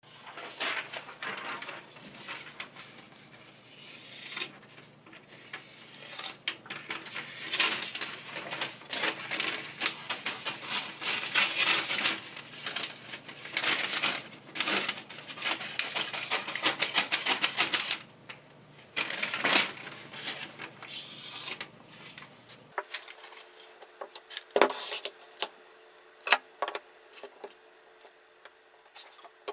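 Close handling noises: a sheet of paper rustling and scraping against a kitchen knife blade in dense, rapid strokes. After an abrupt change about three-quarters of the way in, there are sparse sharp clicks and knocks as the knife is fitted into the metal clamp of a fixed-angle sharpener.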